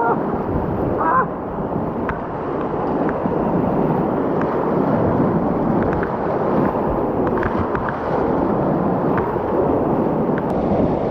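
Whitewater river rapids rushing steadily, with a few short splashes.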